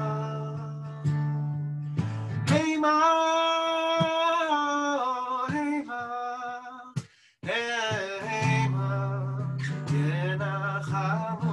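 A man singing a slow melody in long held notes while strumming an acoustic guitar, with a short pause about seven seconds in.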